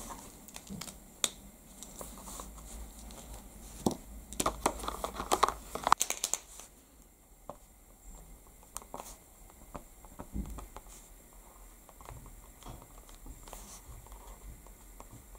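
Small clicks and rustles of card and marker pens being handled on a table, with a dense run of rapid clicking and crinkling about four to six seconds in; after that only light, scattered ticks.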